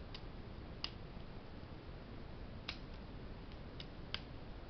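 Brinks brass padlock with a hardened steel shackle being opened with its key and snapped shut, giving about six sharp metallic clicks at uneven intervals as the mechanism releases and catches the shackle.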